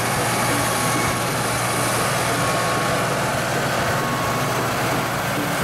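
A heavy engine idling steadily, under a constant hiss.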